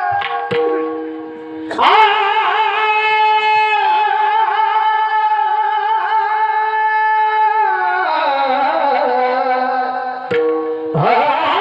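Devotional kirtan singing: an alaap of long, ornamented vocal notes over steady held accompanying notes, sliding down to a lower register about eight seconds in.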